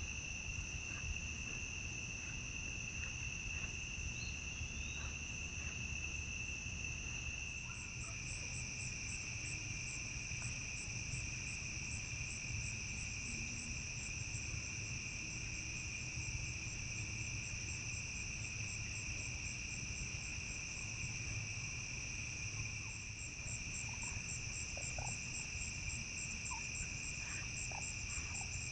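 Evening chorus of crickets and other insects: steady, unbroken trills at two pitches. About a quarter of the way in the chorus shifts slightly lower and a pulsing higher trill joins in.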